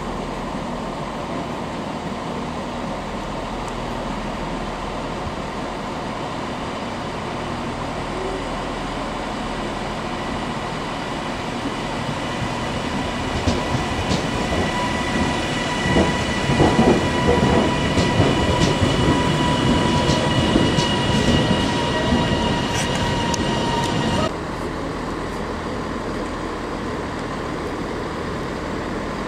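A passenger train running past close along the platform, with a steady high whine and a low rumble. Its wheels click over rail joints. The sound cuts off abruptly about 24 seconds in.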